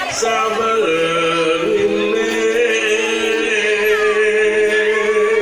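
Several voices singing slow, held notes in harmony. The chord shifts about a second in and again just before two seconds.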